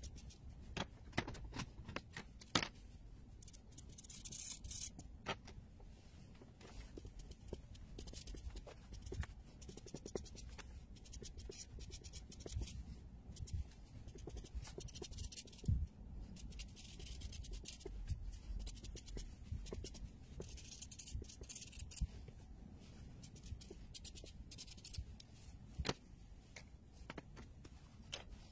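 Marker tips scratching and rubbing on paper as areas are coloured in, with many small clicks and taps of pen and hand on the desk. A few louder stretches of scratching come in patches.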